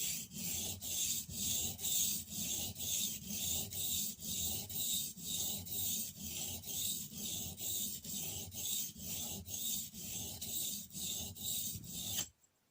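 Spokeshave blade being rubbed back and forth on a water-soaked sharpening stone, honing the edge on the stone's finer side. Steady strokes, about two to three a second, that stop suddenly near the end.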